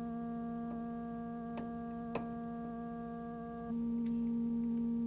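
Steady test tone of about 230 Hz from a loudspeaker: a sine wave through an amplifier with crossover distortion, heard as a tinny tone rich in overtones. About three and a half seconds in, the upper overtones drop away and the tone turns purer and louder, like a near-clean sine. Two faint clicks come from the knobs being turned.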